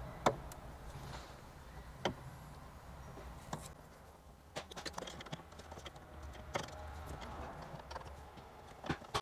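A Torx screwdriver undoing a screw deep inside a car dashboard's air-vent opening: scattered light clicks and taps of the tool against the screw and the plastic trim.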